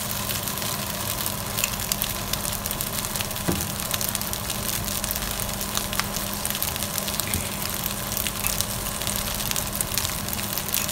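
Fried rice with egg sizzling steadily in a hot nonstick frying pan, just after oyster sauce has been poured in, with small crackles throughout and a faint steady hum underneath.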